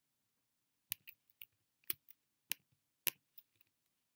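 A run of sharp, irregular clicks from a computer mouse and keys, about eight in under three seconds, beginning about a second in.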